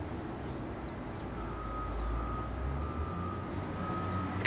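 Background noise with a low distant engine rumble that swells about two seconds in. A steady high tone comes in partway through, and faint short high chirps repeat evenly.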